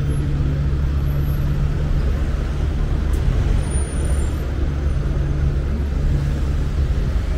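City street traffic: a steady low drone of vehicle engines running close by, with road noise.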